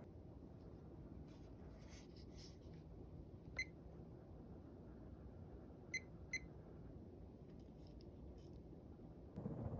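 Emerson Veranda ceiling fan with a 153x18mm spinner motor running almost silently, just a faint steady low rush of motor and moving air. Three short high beeps cut through: one about three and a half seconds in, then two close together around six seconds.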